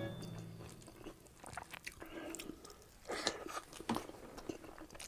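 Close-miked chewing and wet mouth sounds of a person eating rice and saucy Bicol Express by hand. The mouthful is worked in short, irregular smacks and clicks. Background music plays for about the first second, then stops.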